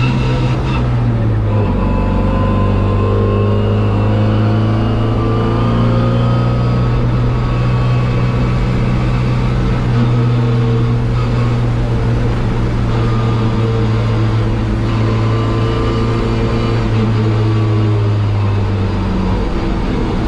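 MGB race car's 1.8-litre B-series four-cylinder engine at racing speed, heard on board. There is a gear change about a second and a half in. The revs then climb slowly under full throttle and drop near the end as the driver lifts off.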